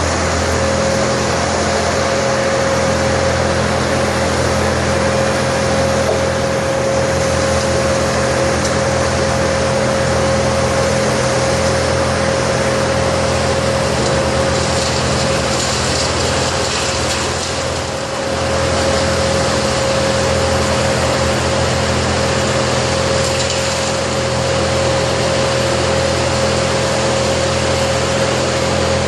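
Engine-driven tree-removal machinery running steadily at speed, with a constant high whine over a low drone; it eases off briefly about 18 seconds in.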